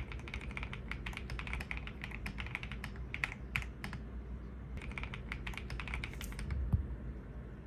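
Keys of a mechanical numpad being typed on quickly, many clicky-clacky keystrokes in two runs with a short pause between them, followed by a dull thump.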